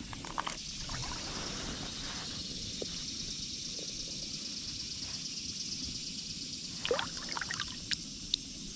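Shallow river water trickling and sloshing around hands holding a longnose gar in the water for release, with a few small splashes near the end.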